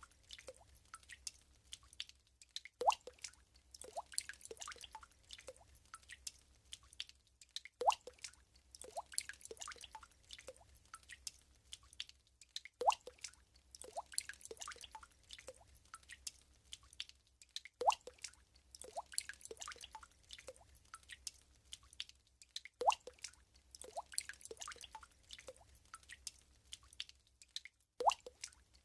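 Water drops falling into still water, each a short rising plink. A louder drop comes about every five seconds, with scattered smaller drips between.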